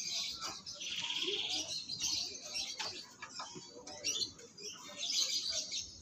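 Cage birds chirping, with a rapid buzzing trill about a second in and a cluster of high chirps around five seconds.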